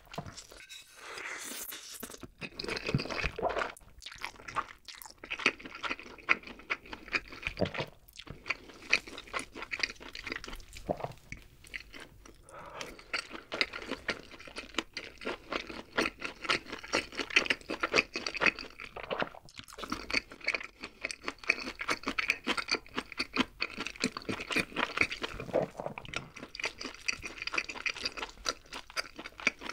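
Close-miked eating: Jjapaghetti black bean noodles slurped from a spoon, then chewing and crunching of gochu-mayo fried chicken, full of wet clicks and crackles.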